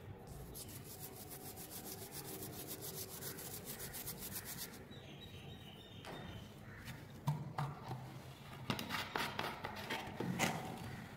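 Toothbrush bristles scrubbing a rusty metal USB drive in rapid, even back-and-forth strokes that stop about five seconds in. Then a run of sharp clicks and knocks as the drive, its cap and the brush are handled and set down on a concrete floor, the loudest near the end.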